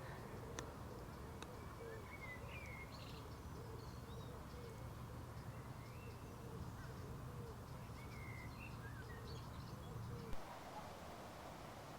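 Small birds chirping and calling in short, scattered phrases over a low steady hum, with a run of low repeated notes underneath. A short knock sounds about ten seconds in, after which the hum and low notes drop away.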